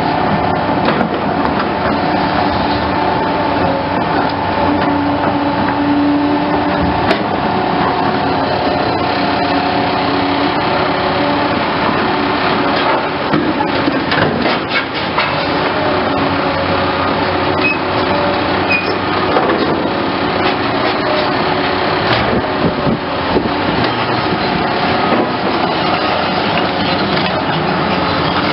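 Caterpillar hydraulic excavator's diesel engine running steadily while the machine works, with a series of knocks and clanks near the middle.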